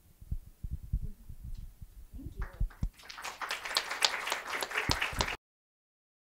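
A run of low thumps and knocks, then audience applause starting about three seconds in, which cuts off abruptly a couple of seconds later.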